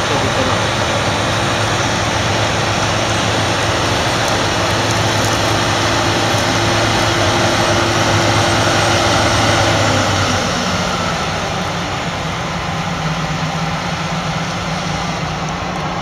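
Claas Lexion combine harvester running close by, a dense steady machine whir over its engine note. About ten seconds in the engine note falls in pitch and the sound eases slightly, then holds steady at the lower note.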